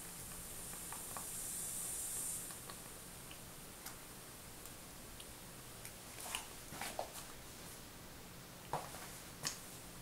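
Krups XP 3440 home espresso machine at rest just after pulling a shot: a faint hiss that stops about two seconds in, under a low hum, then five soft clicks spread over the last four seconds.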